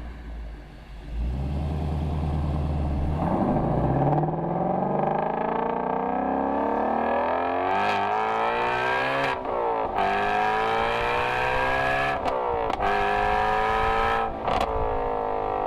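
Shelby GT350's 5.2-litre flat-plane-crank V8 accelerating hard after a low steady run. The pitch climbs through the gears from about three seconds in and drops back at each of three quick upshifts in the second half.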